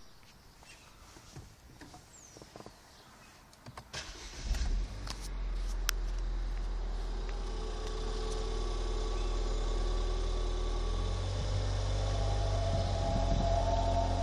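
A 2014 Ford Fiesta ST's turbocharged 1.6-litre four-cylinder is started about four and a half seconds in and idles steadily, with a few clicks before and as it catches. Near the end, as the car starts moving, a steady whine comes in over the engine and grows louder; the owner was told this is just the turbo spooling up, a normal noise.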